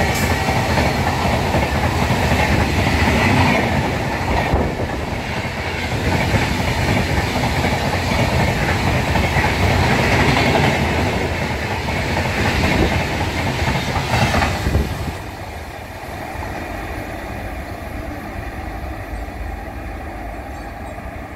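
Express passenger train running through at high speed, its coaches' wheels rushing and clattering on the rails. About fifteen seconds in the noise drops off as the last coaches pass, leaving a fainter, steady rush.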